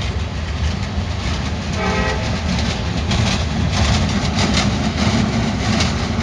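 Freight train rolling by on the track: a steady low rumble with repeated clicks of wheels over the rails, and a brief pitched tone about two seconds in.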